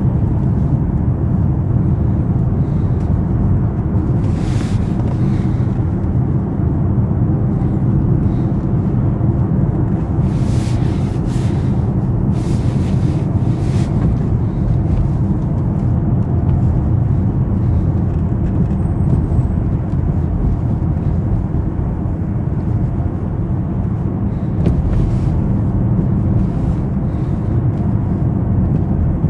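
BMW 750i's 4.4 L twin-turbo V8 running steadily while driving, a continuous low rumble with road noise. Short hissing noises come through about four seconds in and again a few times between about ten and fourteen seconds.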